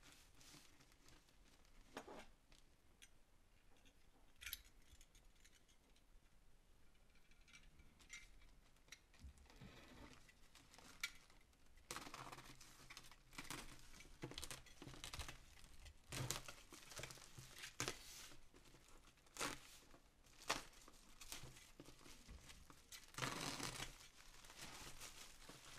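Black plastic parcel wrapping being slit with a utility knife and torn open, the plastic rustling, crinkling and tearing. Faint with only a few light clicks for the first half, then busy crinkling and tearing from about halfway through, loudest near the end.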